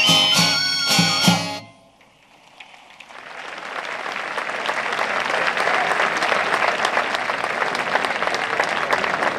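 A live folk tune ends sharply on its final note about a second and a half in. After a brief hush, audience applause swells and carries on steadily.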